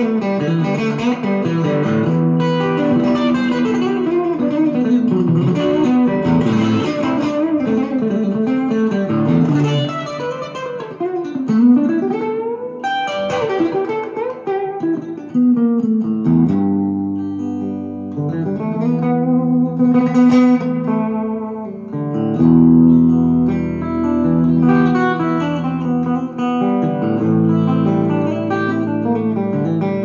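1971 Micro-Frets Stage II electric guitar played through an amplifier: chords and single-note lines, with notes swooping up and down in pitch through the first half, then steadier held chords toward the end.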